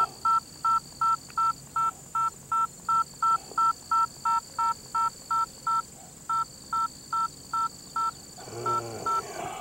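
Mobile phone keypad beeping: the same short two-tone key beep repeated about four times a second as buttons are pressed to scroll through the phone's stored numbers, with a brief pause partway through. A low voice mutters briefly near the end.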